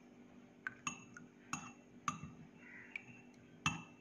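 Steel spoon clinking against a glass tumbler as spoonfuls of squash are measured and tipped in: about five light, ringing clinks, the loudest near the end.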